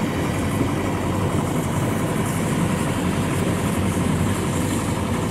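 Rice combine harvester's engine running steadily as the machine drives across the harvested field.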